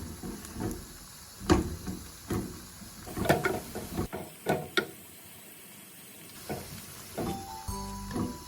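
Minced beef frying in a pan with a light sizzle, and a spatula knocking and scraping against the pan several times. Background music comes in near the end.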